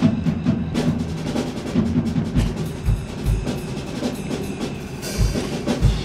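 Background music led by drums and bass, with repeated low drum hits.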